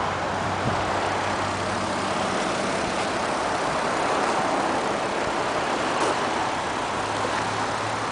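Toyota Supra MK4's twin-turbo 2JZ-GTE inline-six idling steadily with the hood open.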